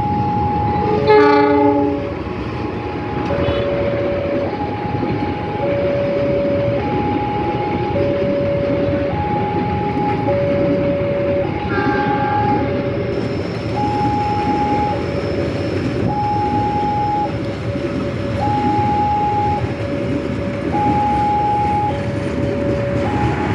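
A train passing with a steady loud rumble, its horn sounding briefly about a second in and again more faintly about halfway through. Over it, a two-tone warning signal alternates between a higher and a lower note about once a second.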